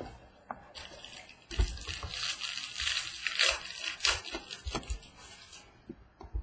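Silver foil wrapper of a Museum Collection baseball card pack crinkling and tearing as it is opened by hand, with a few knocks in among the crackle.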